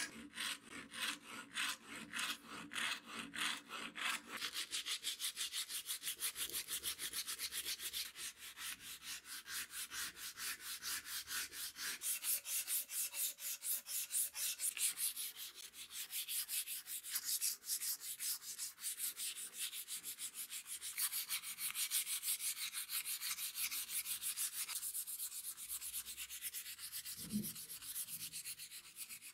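A hand file rasping across the wooden handle scales of a straight razor for the first few seconds. Then sandpaper rubbed over the wooden scales in quick, even back-and-forth strokes.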